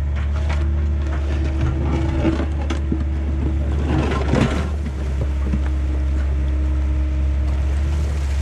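1990 Yanmar B50 mini excavator's diesel engine running steadily under hydraulic load as the steel bucket works the muddy ditch. There are scattered knocks, then a burst of scraping and clatter about four seconds in as the bucket bites into the mud and stones.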